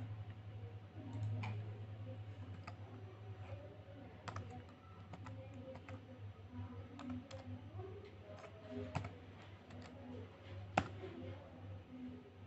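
Laptop keyboard keys pressed one at a time while typing numbers: scattered, uneven keystroke clicks, with one sharper click about eleven seconds in. A steady low hum runs underneath.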